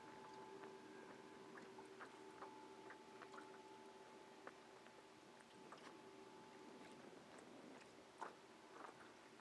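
Near silence: a faint steady hum with scattered soft clicks and ticks, a couple of them a little louder near the end.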